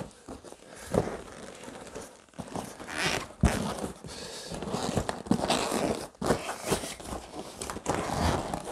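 The deflated vinyl hull of an Intex Explorer K2 inflatable canoe rustling and crinkling as it is smoothed out and laid flat by hand, with a few soft thumps.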